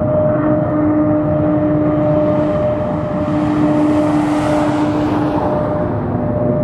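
Jet engine noise of an F-104 Starfighter's single J79 turbojet on landing approach: a steady drone with a hum, swelling to a peak about four to five seconds in.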